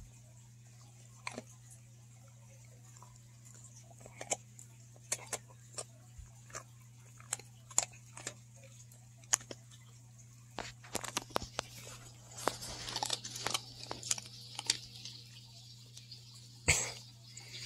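A dog licking and gnawing a frosted dog cookie, with scattered short crunches and clicks that come thicker about two-thirds of the way through.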